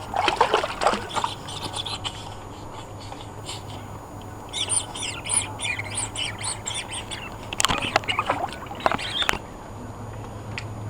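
A songbird chirping a rapid run of short high notes in the middle, with short noisy bursts near the start and again about eight seconds in.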